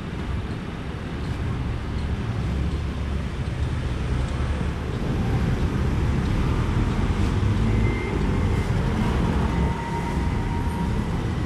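Road traffic running past, a steady low rumble that swells to its loudest as a vehicle goes by about two-thirds of the way through.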